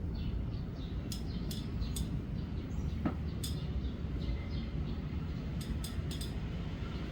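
Strong wind buffeting the microphone as a steady low rumble, with small birds chirping over it, which the uploader takes for sparrows. Several sharp clinks or ticks come through, a few clustered near the middle and near the end.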